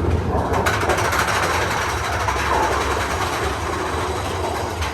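A rail-riding vehicle, likely a theme-park ride car, rumbling and clattering steadily along its track.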